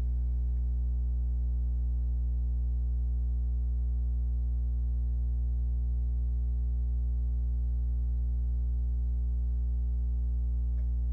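Steady electrical mains hum: a low buzz with a ladder of overtones, unchanging throughout.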